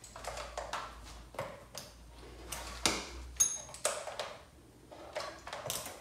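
A few light clicks and metallic clinks from battery cables and clamps being handled and connected, with one short ringing ping about three and a half seconds in.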